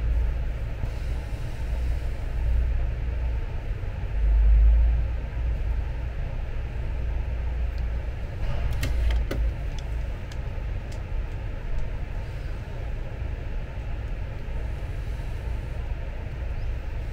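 A steady low rumble of unknown source that swells briefly about four seconds in. Over it, a few light metallic clicks and taps come about halfway through, as pliers grip and turn the threaded lead screw and gear of an electric bed's actuator.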